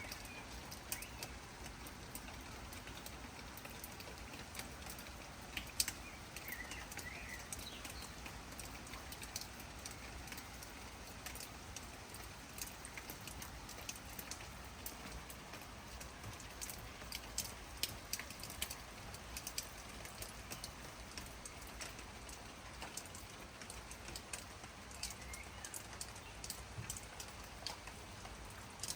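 Steady rain with many irregular drops ticking on leaves and surfaces. A bird chirps briefly a few times, about six seconds in and again near the end.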